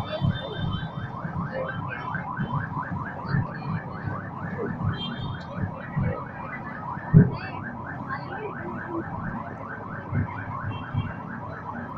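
An electronic siren in a fast yelp: a rising sweep repeated about six times a second without a break. Scattered low thuds sound under it.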